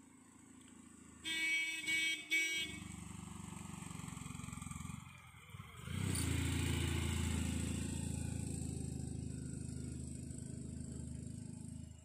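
Small passenger van sounds its horn three times in quick succession as it nears a hairpin bend, then its engine runs through the turn. The engine dips briefly about five seconds in, then comes back louder as the van passes close.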